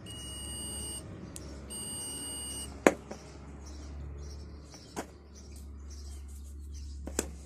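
Continuity buzzer of an A830L digital multimeter beeping twice, each beep about a second long, as the probe tips are touched together: the circuit through the test leads is closed. A few sharp taps follow, the loudest just after the second beep.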